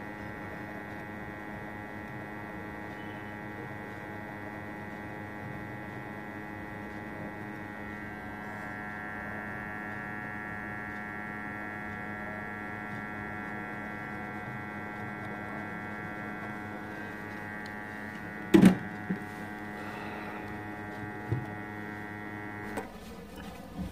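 Hot air rework station blowing, a steady hum with a stack of even tones that cuts off abruptly near the end as the hot air is shut off. A single sharp knock comes about three-quarters of the way through.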